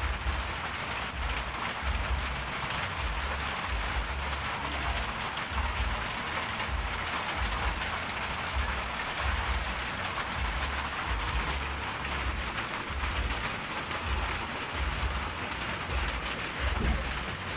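Steady hiss of rain falling, with irregular low rumbling bumps underneath.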